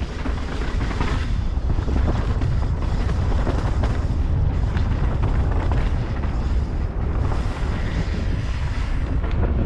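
Wind buffeting a GoPro Hero 9's microphone on a fast mountain-bike descent over a dirt singletrack, a steady low rumble, with the knobby tyres on dirt and the bike rattling in frequent short clicks.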